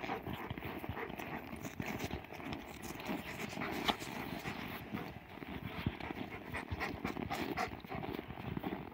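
A dog panting close to the microphone, with footsteps crunching in snow and scattered clicks of the camera being handled.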